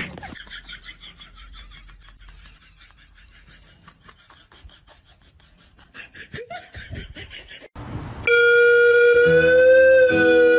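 Faint, quick repeated ticking sounds and a quiet stretch, then music with long held, slowly bending notes over a steady accompaniment starts about eight seconds in and is the loudest part.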